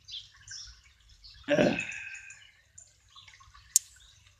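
Small birds chirping in the background of a rainy garden. About a second and a half in there is a brief louder sound, and near the end a single sharp click.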